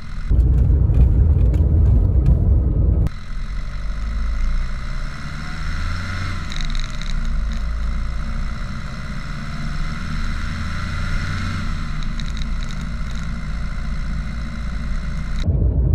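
Mercedes-Benz W124 200D driving, heard from under the car: the OM601 four-cylinder naturally aspirated diesel running, with road and tyre noise. A heavier low rumble stops suddenly about three seconds in, then the running is steadier, its pitch slowly rising and falling.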